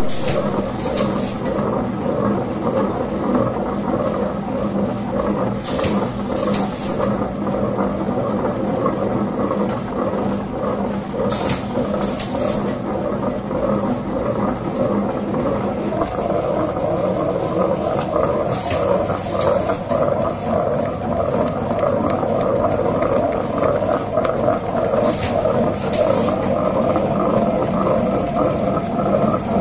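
Semi-automatic wet grinder running, its motor and drive turning the grinding stones through thick batter in a stainless steel drum with a steady hum. A brief high hiss or scrape recurs about every six seconds, often twice in quick succession.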